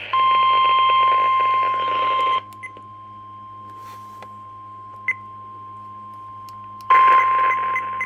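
NOAA Weather Radio warning alarm tone heard through a radio receiver with static: one steady high tone, signalling that a severe weather warning is about to be read. It is loud for about two seconds, drops much quieter, and comes back loud near the end.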